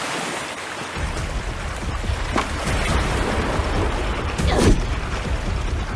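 Film soundtrack of mixed sound effects and score: a deep rumble comes in about a second in beneath a rushing noise, with a few short falling swooshes.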